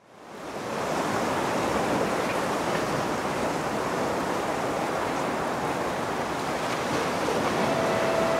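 Steady rushing noise, even and without any pitch, fading in from silence over the first second and then holding level.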